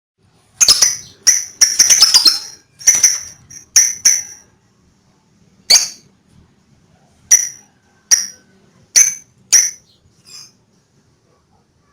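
Lovebird calling: a quick run of short, high-pitched chirps in the first couple of seconds, then single chirps about a second apart, the last one faint.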